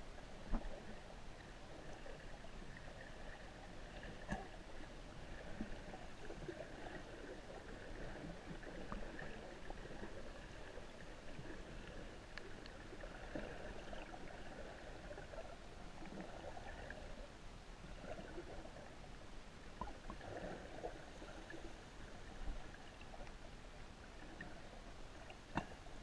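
Muffled underwater sound of shallow sea picked up by a camera held below the surface: a steady wash of water noise with a few scattered small clicks.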